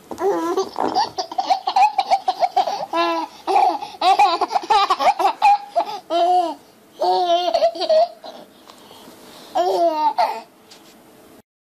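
A baby laughing in repeated high-pitched bursts of giggles and squeals, which stop about a second before the end.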